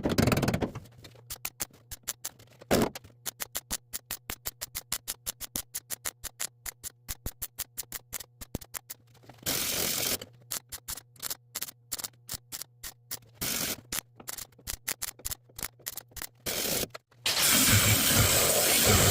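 MIG welder stitch-welding sheet metal in short rapid pulses, about four to five crackling bursts a second, over a faint steady welder hum. There is one longer bead of about a second about halfway through, and a continuous crackling hiss of a longer weld near the end.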